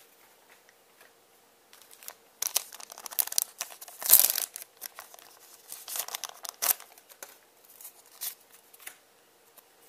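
A foil trading-card booster pack wrapper crinkling as it is handled and torn open, with the loudest rip about four seconds in.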